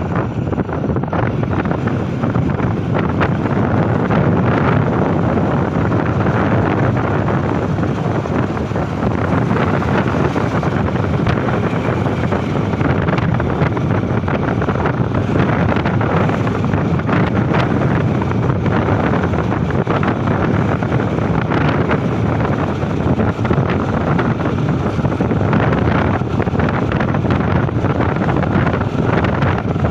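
Wind rushing over the microphone on a moving motorcycle, steady throughout, with the motorcycle's running and road noise underneath.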